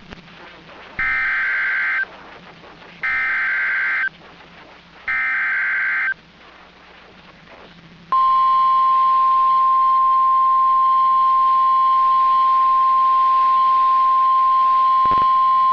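Weather radio emergency alert signals. First come three short, shrill digital data bursts of the EAS/SAME end-of-message code, about a second each and spaced two seconds apart. About eight seconds in, the loud, steady 1050 Hz NOAA Weather Radio warning alarm tone begins, which announces the next warning.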